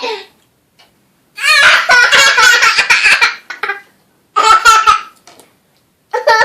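Small child laughing in three loud, high-pitched bursts of pulsing laughter: a long one about a second and a half in, a short one past the middle, and another starting near the end.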